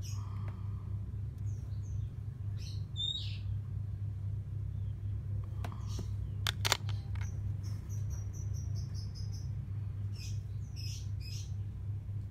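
Steady low hum with short high chirps now and then and a quick run of chirps past the middle. A few sharp clicks about six to seven seconds in come from silver rings knocking as one is taken from a display box.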